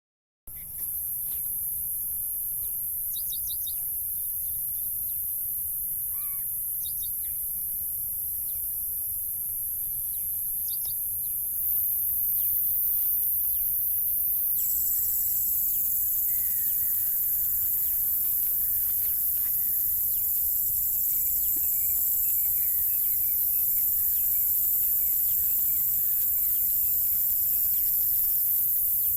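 Insects trilling in a steady, very high-pitched chorus, with a second, lower insect drone joining about halfway through. Scattered short bird chirps over it.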